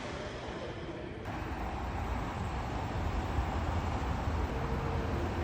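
Low, steady rumble of a motor vehicle engine with a haze of road or yard noise, growing slightly louder.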